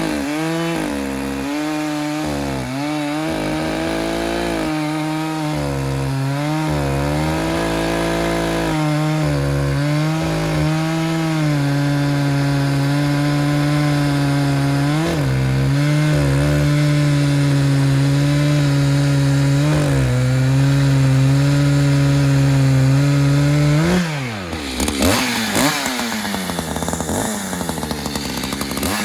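Echo CS-590 two-stroke chainsaw with a 24-inch bar running at full throttle cutting into wood, its pitch sagging several times as the chain bites. About five seconds from the end, the throttle is let off and the engine falls away to idle.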